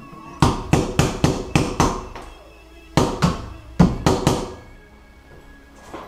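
Screwdriver used as a hammer, tapping a tight plastic stem extension onto a tub-shower diverter valve stem: a quick run of sharp taps, a short pause, then a second run, about three or four taps a second.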